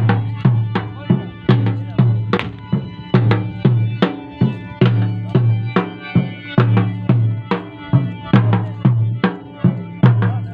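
A drum beating a fast, steady rhythm, about two to three strokes a second, each stroke with a low boom that dies away quickly. A faint steady held tone runs underneath.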